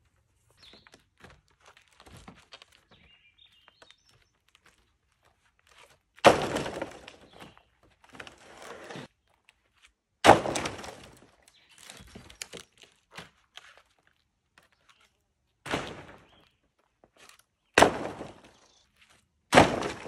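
Sawmill slabs and offcut boards thrown onto a slab pile, each landing with a loud wooden clatter, five times in all, the first about six seconds in. Before and between them come faint scrapes and light knocks.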